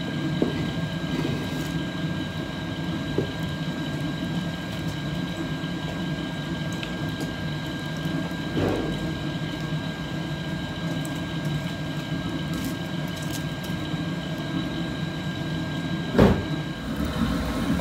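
A clay cooking pot being pushed into a wood-fired oven over a steady low rumble, with one sharp knock near the end as it is set down.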